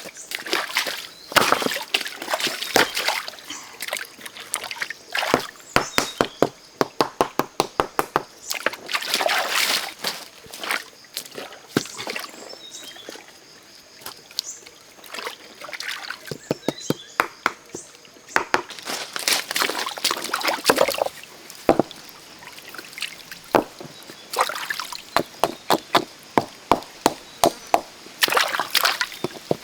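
Water sloshing and splashing, broken by runs of quick, sharp clicks and knocks.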